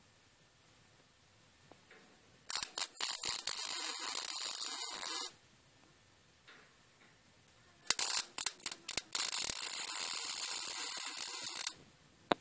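MIG welder arc crackling as steel is welded onto an expanded-metal basket: two runs of about three to four seconds each, the second opening with a few short stuttering starts.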